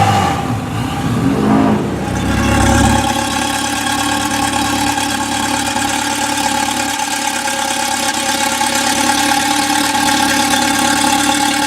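Ferrari V8 engine revved in short blips in the first couple of seconds, then a second Ferrari V8 idling steadily for the rest, with an even, unchanging note.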